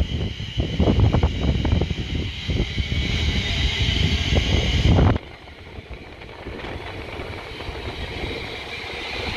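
Trackside train noise with wind buffeting the microphone. About halfway through the sound cuts off abruptly to a quieter, steady rail hiss and hum.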